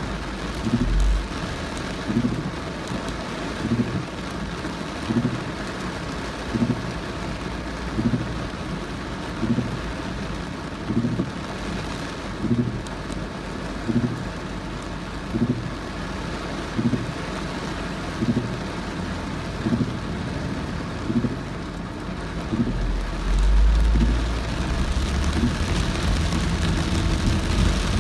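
Heavy rain drumming on a moving car, with a regular low thump about once a second, the beat of the windscreen wipers. A deeper rumble swells briefly near the end.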